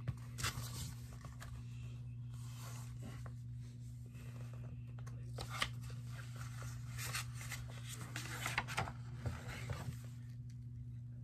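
Paper pages of a picture book rustling and being turned by hand, with a few light handling clicks, over a steady low hum.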